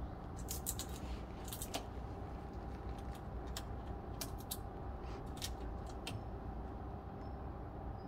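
Jackdaw pecking at its food: faint, irregular sharp clicks and taps, about one or two a second, over a steady low background rumble.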